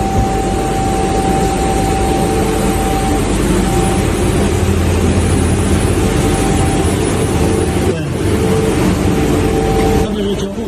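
A machine running steadily: a constant whine over a broad, even hum, with a brief dip about eight seconds in.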